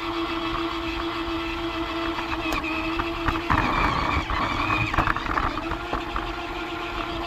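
Toy train's small electric motor running with a steady hum while its wheels rattle along the track. About three seconds in the hum gives way for a couple of seconds to a louder, rougher clattering, then returns.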